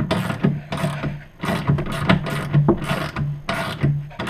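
Hand socket ratchet clicking in quick strokes, about two a second, as a rear mounting bolt of an ATV storage box is run down into the rack.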